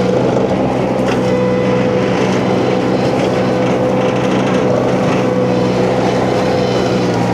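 Huayee LHY680 mini skid steer's engine and hydraulic flail mulcher running steadily under load, with a steady whine over the engine note as the hammer knives shred brush. A short sharp crack comes about a second in.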